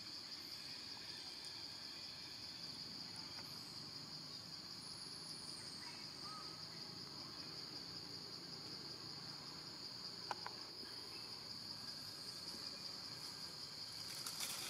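Steady high-pitched chorus of insects droning in the forest, with a single brief click about ten seconds in.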